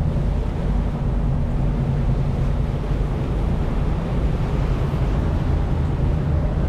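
Charter fishing boat underway: a steady low drone of the boat's engine with water rushing past and wind on the microphone.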